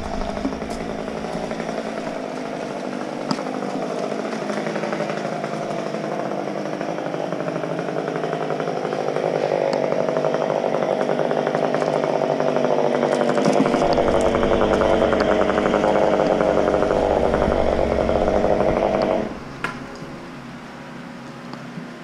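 Chainsaw engine running steadily for a long stretch, gradually getting louder, then cutting off abruptly about nineteen seconds in.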